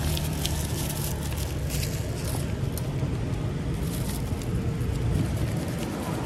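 Steady low rumble of road traffic, with scattered light clicks and crackles over it.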